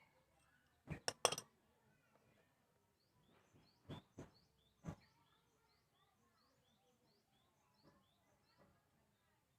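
A few sharp clicks and knocks, the loudest a quick cluster about a second in and more around four and five seconds. A bird chirps a short high note about twice a second in the background from about three seconds in.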